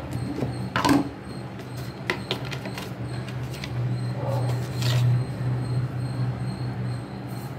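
A few short knocks and clinks of kitchen handling around a stainless-steel mixer jar, about a second in, around two seconds and near five seconds, over a steady low hum.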